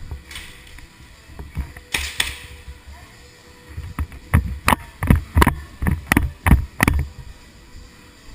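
A brief hiss about two seconds in, then a quick irregular run of about eight sharp knocks and thuds over some three seconds.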